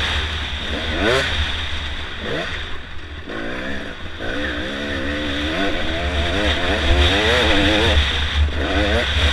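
Enduro dirt bike engine under way, its pitch rising and falling as the throttle is worked, with a short ease-off about three seconds in, heard from a helmet-mounted camera over a constant low rumble.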